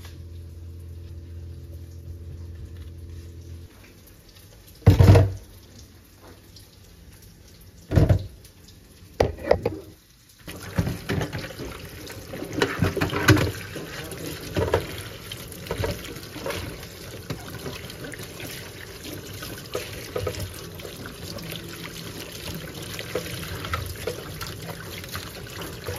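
Kitchen tap running into a stainless steel sink while bell peppers are rinsed in a plastic colander, with small knocks and rattles as they are handled. Before the water starts, about ten seconds in, there are a few loud knocks and a steady low hum.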